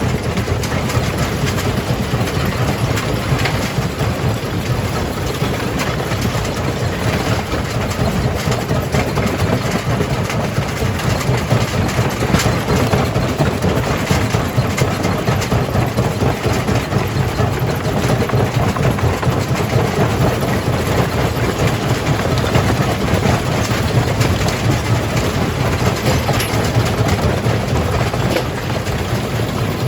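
Jaw crusher at work: a steady heavy engine drone under a continuous irregular clatter and knocking of rock being broken.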